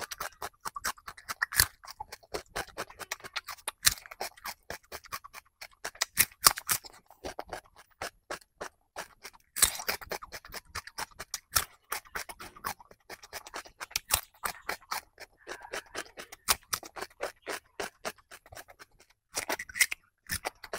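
Crunching and chewing of a raw cucumber: dense, fast, crisp crackles throughout, with a louder snap every few seconds as a bite is taken.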